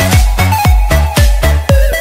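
Electronic dance music with a steady kick drum on every beat, about four beats a second, under a synth melody.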